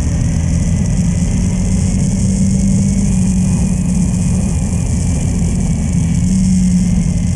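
Motorcycle engine running steadily at road speed, with an even rush of wind and road noise over it.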